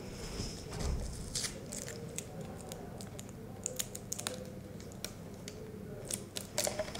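Sellotape being pressed down to fix a plastic ruler to a plastic drinks bottle: scattered small clicks, taps and brief crinkles of the plastic, with a cluster of clicks near the end.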